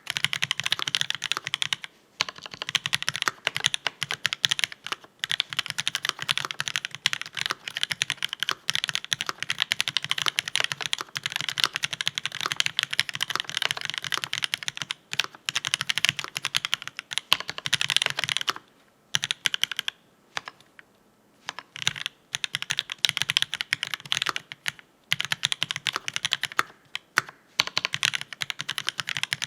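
Continuous fast typing on a custom mechanical keyboard with a brass plate, Marshmallow switches and GMK Bleached ABS keycaps: a dense run of keystroke clacks, broken by a few short pauses about two-thirds of the way through.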